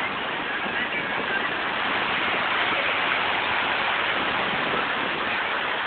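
Sea surf breaking and washing against a concrete sea wall, a steady rushing and churning of water.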